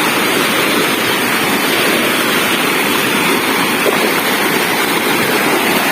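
Waterfall rushing, a steady, loud, even roar of falling water.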